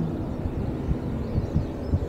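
Low, steady rumble of distant jet aircraft engines, broken by a few dull low thumps about a second in and near the end.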